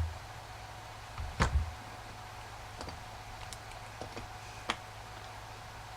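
A few scattered light clicks and knocks from handling a knife and an extension cord while its outer jacket is cut back, the loudest a dull knock about a second and a half in. A steady low hum runs underneath.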